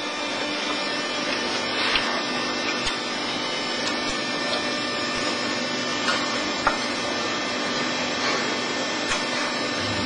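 Steady machinery noise with a few faint clicks scattered through it.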